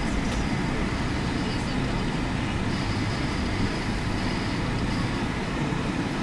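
Steady road noise of a car heard from inside while it drives slowly: a constant low rumble of tyres and engine with no change in level.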